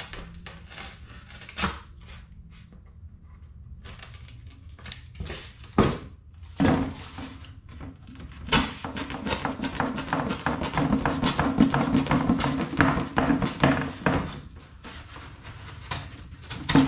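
Utility knife blade slicing through a sheet of cardboard: scratchy, crackling cutting strokes with a few sharp knocks, becoming dense and continuous for several seconds past the middle.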